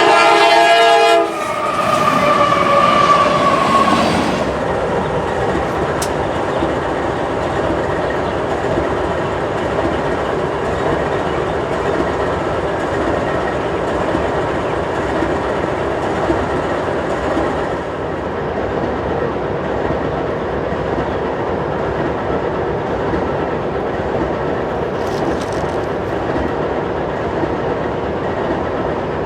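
A CSX freight train's locomotive horn sounds and cuts off about a second in, followed by a falling tone for a few seconds. Then the freight cars roll by with a steady rumble and the clatter of wheels on rail joints.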